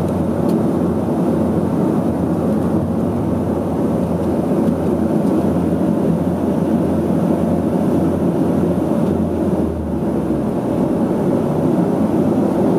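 Turboprop airliner engine and propeller heard from inside the cabin: a loud, steady drone with a hum of several low tones as the plane taxis. The lowest tones ease slightly about ten seconds in.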